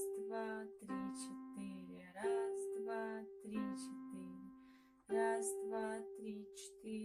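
Piano played slowly with both hands: a held treble note over lower bass notes, a fresh pair of notes struck about every second and a half, with a voice along with the notes.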